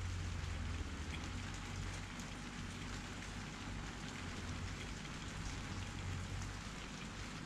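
Steady rain hiss with scattered drops ticking, under a low rumble of wind that is heaviest in the first second or so and then eases.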